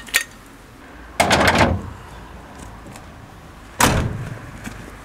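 Two loud thuds, the first about a second in and the second about two and a half seconds later, each dying away over about half a second.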